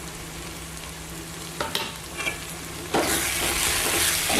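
Onion-tomato masala with ground spices frying and sizzling in oil in a pan as it is stirred, with a few light utensil clicks against the pan. About three seconds in the sizzling suddenly gets much louder.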